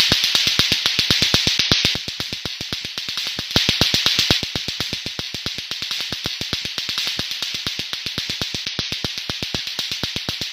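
Lato-lato clacker toy: two plastic balls on a string knocking together in a rapid, even run of clacks, several a second. A hiss rises over it twice, at the start and a little before the middle.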